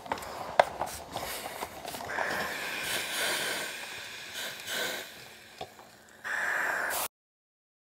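Steam iron hissing in two spells, the second cut off abruptly, after a few light clicks and taps.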